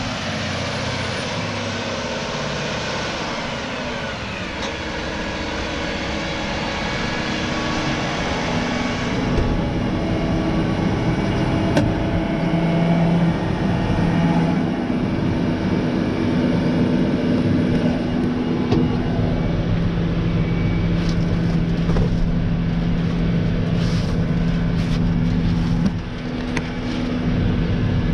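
John Deere 9RX 640 track tractor's diesel engine running steadily under load while pulling a tillage tool. About nine seconds in, the sound becomes closer and deeper, heard from on the tractor itself, with a few light clicks and knocks.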